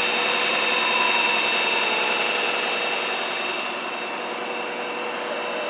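Steady motor-vehicle engine and traffic noise with a faint constant whine in it; the higher hiss drops away from about three and a half seconds in.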